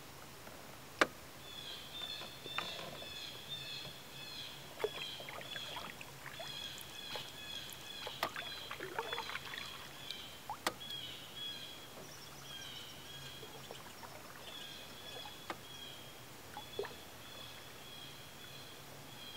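Canoe paddling on calm water: paddle strokes swishing and dripping, with sharp knocks of the paddle, the loudest about a second in. A high, rapidly pulsing animal call repeats throughout.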